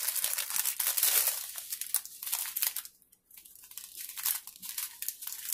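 Clear plastic packaging crinkling and rustling as it is handled and unwrapped, in dense bursts for about three seconds, then a brief pause and softer rustles.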